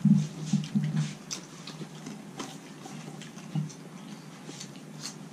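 Eating sounds at a table: scattered small clicks and smacks of people eating with their fingers, with a few short low hums in the first second.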